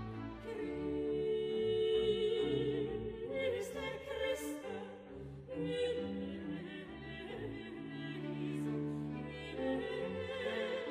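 Orchestral classical music with an operatic singing voice over bowed strings; the voice has a wavering vibrato.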